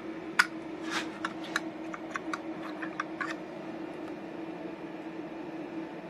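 Plastic clicks as hinged DIN-rail fuse holders are flipped open and a cylindrical cartridge fuse is pulled out and handled. The sharpest click comes about half a second in, followed by a run of small ticks over the next few seconds. A steady low hum runs underneath.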